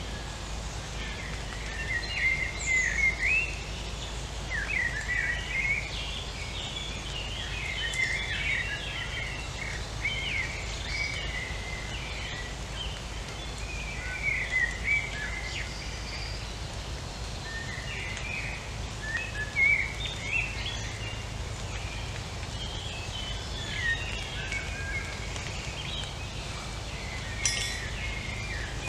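Small birds chirping and calling in short, quick phrases again and again, over a steady low background rumble.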